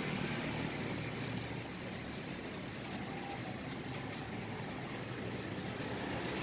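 Steady background rumble and hiss like nearby traffic passing a street-side stall, with a few faint clicks.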